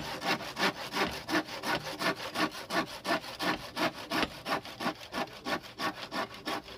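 Handsaw cutting across a young green bamboo pole in quick, even back-and-forth strokes, about four a second.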